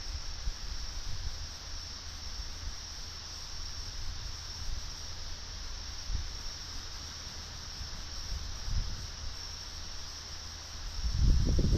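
Night insects chirring in a steady, high-pitched chorus, over a faint low rumble. About a second before the end a much louder low rumble swells up.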